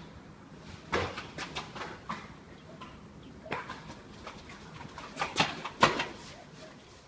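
Footsteps of rubber slide sandals slapping on the corridor's hard floor, coming irregularly and loudest near the end.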